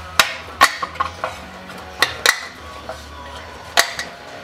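Sharp metallic clinks and taps at irregular intervals, about nine in all, as steel hand tools and parts are handled while a front hub and brake backing plate are being dismantled.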